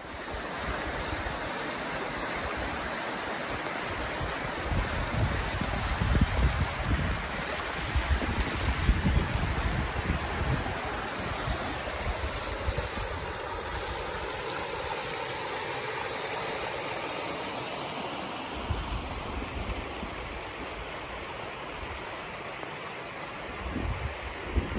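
Small mountain stream cascading over rocks, a steady rush of water, with wind buffeting the microphone in low gusts now and then.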